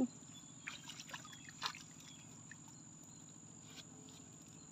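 A few faint splashes and water ticks, scattered and irregular, from small fish jumping and flipping in a lifted fishing net.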